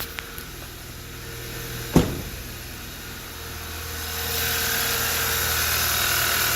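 Audi 2.0T turbocharged four-cylinder engine idling on a cold start, running smoothly, with a single knock about two seconds in. From about four seconds a louder steady whirring sets in and holds.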